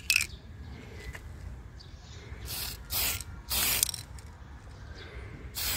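Aerosol can of Mr. Surfacer grey primer spraying in short hissing bursts, about four quick sprays in the second half, the light coats laid on a little at a time to avoid runs.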